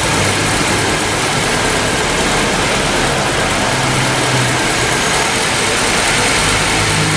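Honda Civic engine idling steadily after a service in which its fuel injectors were cleaned and its fuel filter changed, with a steady hiss over the low engine hum.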